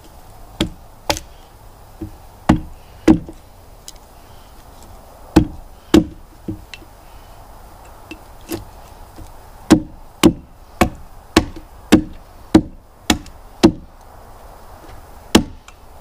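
Axe striking and splitting cedar wood, a scattering of sharp chops followed by a quicker run of about two strikes a second, chopping in to free a nail or piece of wire buried in the wood.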